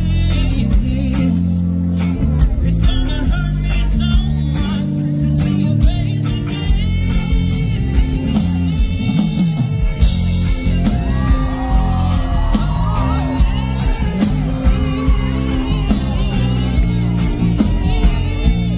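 Live band music with a steady beat, heavy bass and a lead singer.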